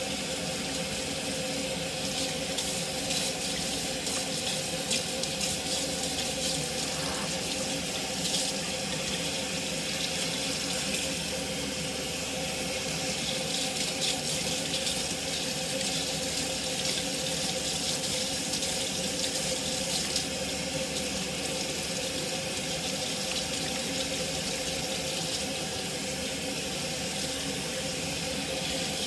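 Kitchen sink faucet running steadily, the stream splashing over hair and hands as the hair is wetted and rinsed under the tap, with a steady tone under the rush of water.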